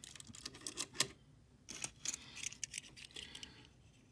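Light, irregular clicks and taps of die-cast toy cars being handled as a small metal-bodied Matchbox tow truck is picked up from among others on a table, with the sharpest click about a second in.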